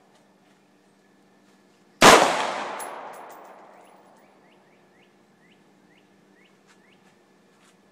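A single AR-15 rifle shot about two seconds in, loud and sharp, echoing as it dies away over about two seconds.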